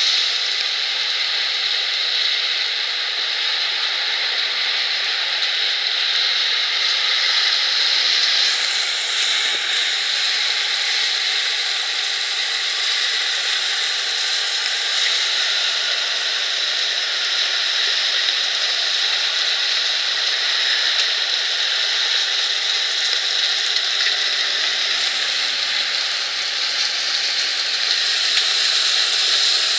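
Violent hailstorm: heavy rain and hail pelting pavement and surfaces in a dense, steady hiss.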